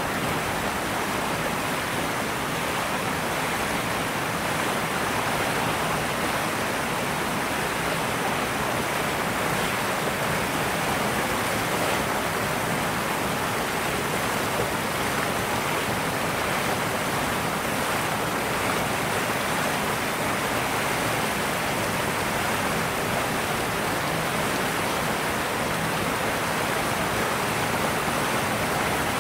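A steady, even rushing hiss that does not change or break.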